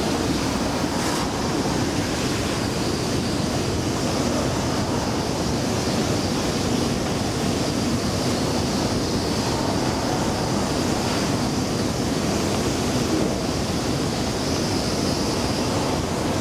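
Metro station escalator running during a ride down: a steady, even mechanical rumble of the moving steps and handrail, with a faint steady high whine.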